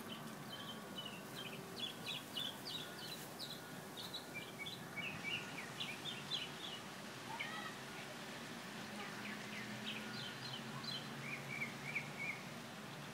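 Several songbirds chirping and singing: quick runs of short high notes in clusters, with brief pauses between runs, over a low steady hum.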